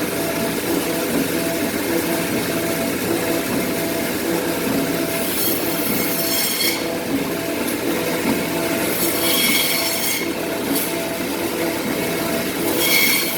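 Automatic frozen meat slicer running with a steady motor noise, its blades giving a high squealing screech three times, each about a second long, as they cut through frozen beef.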